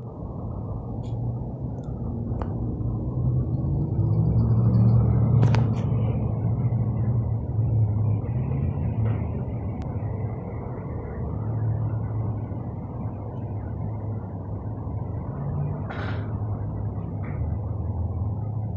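Low, steady rumble of road-vehicle engines, including a fire engine and an ambulance, with no siren, swelling about four seconds in. A few short sharp clicks cut through it.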